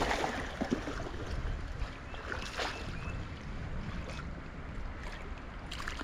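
Stream water running, with wind rumbling on the microphone and a few brief knocks.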